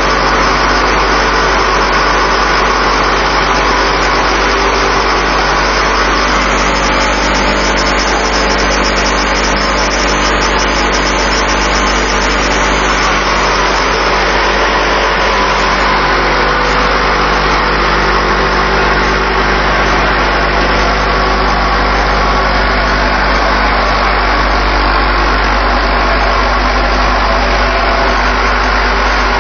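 Concrete vibrating table running: a loud, steady mechanical hum with a strong deep drone underneath.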